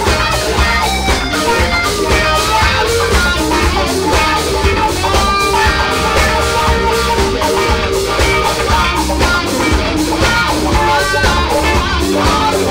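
Blues-rock band playing live, with electric guitar lines bending in pitch over bass guitar and drums.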